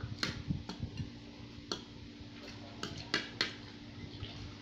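Eating noises at a table: a handful of sharp, irregular clicks and taps as spoons and forks work at a bowl and plate of spicy instant noodles, several in the first second and a pair about three seconds in, over a faint steady hum.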